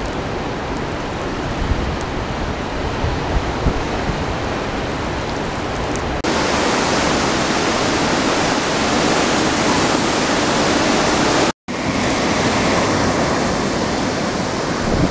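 Hurricane-force wind and driving rain making a loud, steady rushing noise, with wind buffeting the microphone in the first few seconds. About six seconds in, the sound switches abruptly to a brighter, more even hiss of rain and wind. It cuts out for an instant about two-thirds of the way through.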